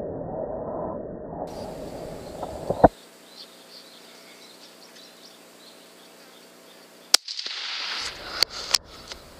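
Two sharp rifle cracks, the louder about three seconds in and another about seven seconds in, each cut off abruptly. Between them is a faint steady hum, and near the end a hiss with a few smaller clicks.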